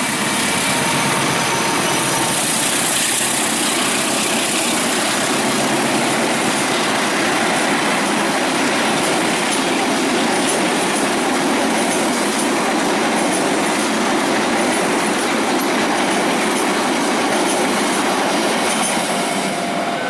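A long passenger train hauled by a CC 204 diesel-electric locomotive passes at close range, its carriages' wheels running steadily and loudly on the rails.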